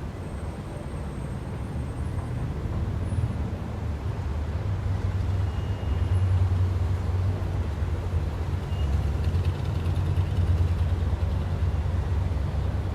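Downtown street traffic: a steady low rumble of engines and tyres from passing vehicles, swelling louder about six seconds in.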